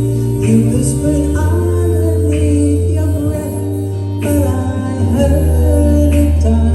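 Music with singing: held sung notes over a steady bass line.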